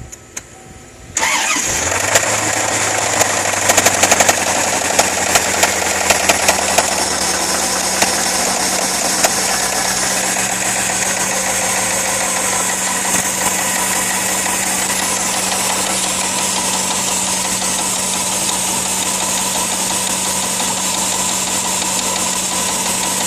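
1995 Corvette's LT1 5.7-litre V8 starting about a second in and then idling, with sharp knocks over the first several seconds after start-up that become only occasional as it settles. The knock seems to come from near the top of the engine; the owner suspects a lifter or rocker and fears a rod.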